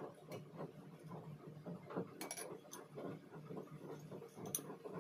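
Eating at a table: a spoon clinks a few times against a ceramic bowl and a small glass sauce dish, over faint chewing.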